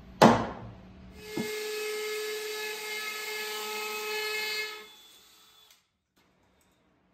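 A short loud knock, then a cordless drill runs steadily for about four seconds, boring holes at the foot of a wooden stud wall, and winds down to a stop.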